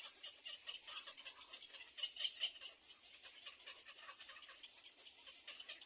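Nestling birds making a fast, high, scratchy chatter, louder about two seconds in: begging for food.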